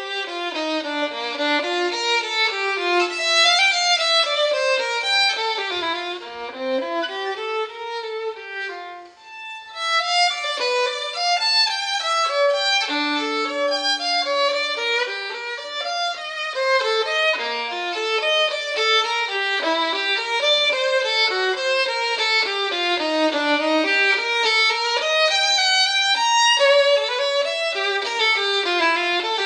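Background music on solo violin, playing fast running passages that sweep up and down, with a brief break about nine seconds in.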